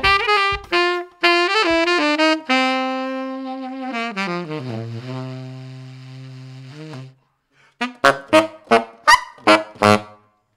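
Selmer Signature tenor saxophone played solo: a phrase of notes running down to a long, low held note that fades away, then, after a brief pause, a quick string of short detached notes.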